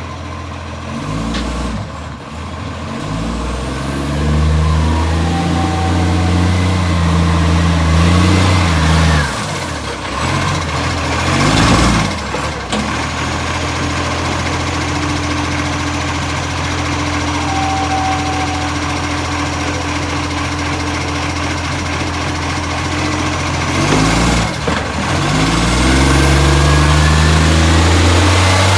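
Garbage truck's diesel engine, blasting through an exhaust leak. It revs up and holds high revs twice, settling back to a steady idle in between. There is a brief burst of noise about twelve seconds in.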